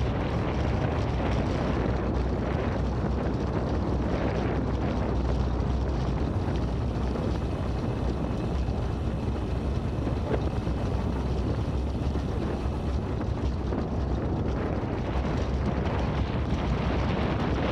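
Steady low rumble and wind noise from a slowly moving vehicle carrying the camera, its tyres rolling over cobblestone paving.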